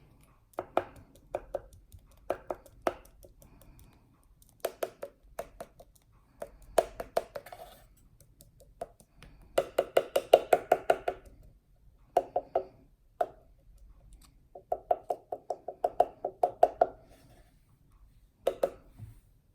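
Ink pad dabbed against the edges of wooden drawers: runs of quick light taps, several a second, in clusters with short pauses between.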